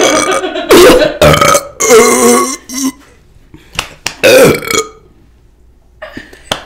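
A woman burping loudly again and again after gulping down soda: a quick run of massive burps over the first three seconds and one more about four seconds in.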